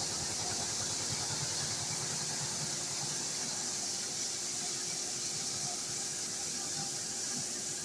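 HAAS CNC machining centre running with a 3900 LZ9 cylinder head in it: a steady hiss with a faint steady tone underneath. A low hum fades out about three seconds in.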